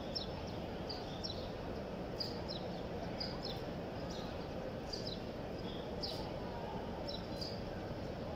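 Steady murmur of a large crowd, with small birds chirping above it in short, high, falling chirps, about two a second.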